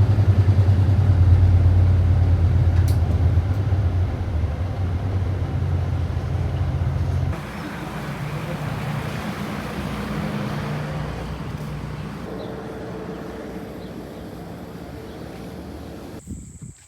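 Vehicle engine and road noise heard while riding, a loud low hum for about the first seven seconds that then drops to a quieter running sound. It cuts off abruptly near the end.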